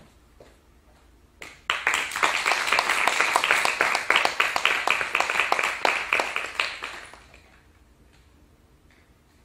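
Audience applauding, many hands clapping. It starts suddenly about two seconds in and dies away after about five seconds.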